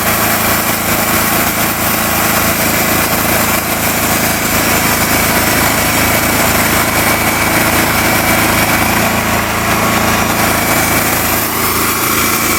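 Norwood portable band sawmill running steadily under load, its gas engine and band blade cutting through a white oak beam.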